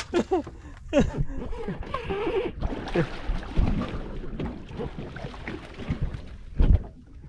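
Water splashing and sloshing against a boat's hull as a fishing line is brought up to the surface, with wind buffeting the microphone. A heavier low thump near the end.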